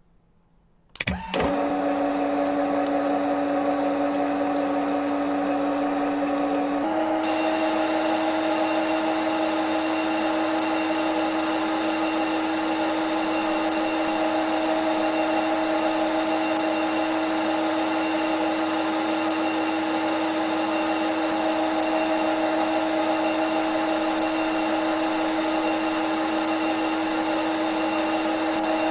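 Simulated CNC machine spindle sound from a machining simulator: it starts about a second in with a quick rising whine, then runs as a steady hum. About seven seconds in the pitch steps up slightly and a steady hiss joins it.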